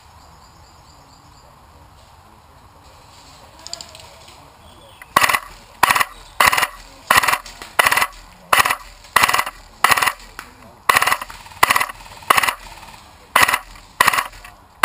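Airsoft rifle firing single shots in a steady run, about thirteen sharp cracks, roughly one every 0.7 seconds, starting about a third of the way in.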